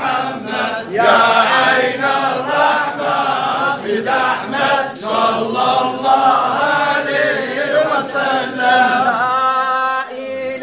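A group of men chanting together in a Sufi devotional chant.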